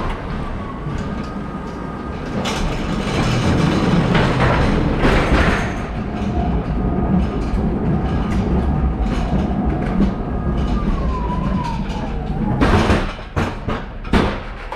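Electric pallet truck driving: a steady motor whine over the rumble and clatter of its hard wheels, with sharp clacks as it rolls across the floor joins into a trailer. Near the end the whine falls in pitch as it slows, and a few loud knocks follow.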